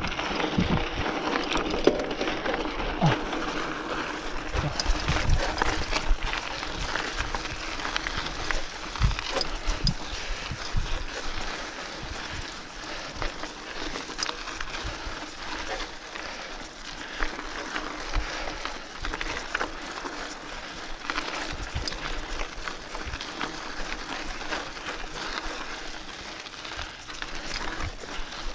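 Mountain bike riding downhill on a dirt singletrack: a steady rush of tyre noise on loose dirt, broken by frequent short knocks and rattles as the bike goes over bumps.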